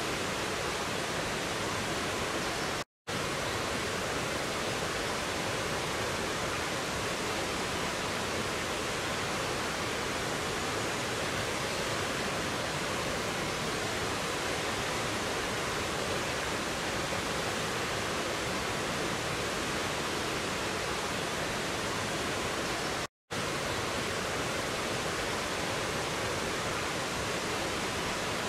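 Rocky mountain stream rushing over boulders in small waterfalls and cascades: a steady, even rush of white water. The sound cuts out completely for a split second twice.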